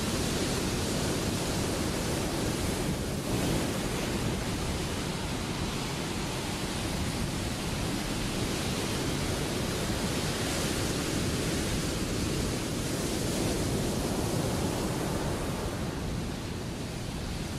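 Ocean surf: breaking waves making a steady wash of noise that swells a little now and then.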